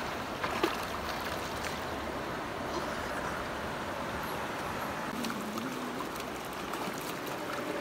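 Shallow river water flowing over rocks: a steady rushing and trickling, with a few small splashes near the start.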